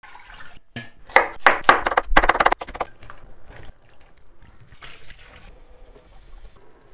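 Water pouring and splashing in a kitchen pot and sink, loudest in a busy stretch of splashes and clatter between about one and three seconds in, then quieter trickling.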